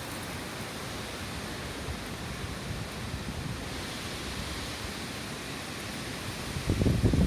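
Steady hiss of typhoon wind and heavy rain. Near the end, a gust buffets the microphone with low rumbling.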